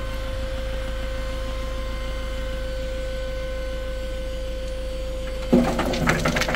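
Iveco Daily tipper truck running with a steady whine and hum. About five and a half seconds in, a sudden rough rattling, crackling noise starts over it.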